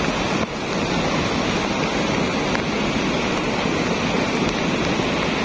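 Lahar from Semeru, a volcanic mudflow of water, sand and rock, rushing down its channel in a loud, steady noise of churning water. The flood is still swelling.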